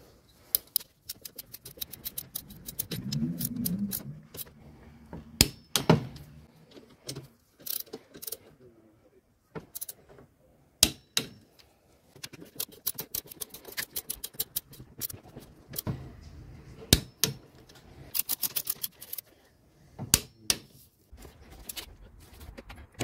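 Ratchet wrench clicking in quick runs as the throttle-body bolts are driven and tightened, with a few single sharp clicks in between.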